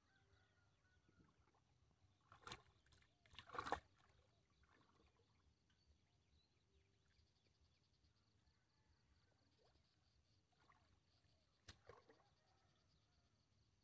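Near silence on open water, broken by a few short noises from fishing line being handled over the side of a small boat: two close together a few seconds in, the second the louder, and one more near the end.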